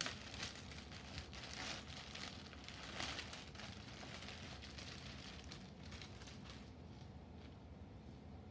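Clear plastic packaging bag crinkling and rustling as a folded shirt is pulled out of it, a run of crackly rustles that dies down near the end.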